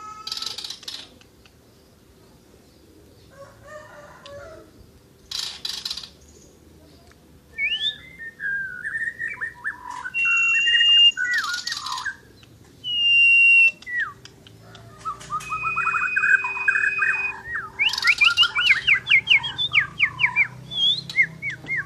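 A mure songbird singing in full voice: varied clear whistles, slurred glides and fast runs of repeated notes, busiest in the second half, broken by several short harsh rasping bursts.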